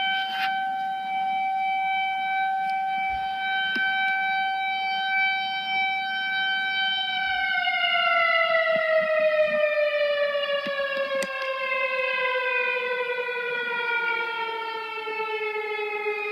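Whelen outdoor tornado warning siren sounding for a test: a loud steady tone that holds for about seven seconds, then slowly winds down, falling steadily in pitch.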